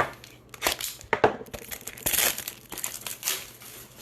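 Crinkling plastic packaging and card handling: irregular rustles and sharp clicks as trading cards are unwrapped and pulled, loudest at the start and again about a second in.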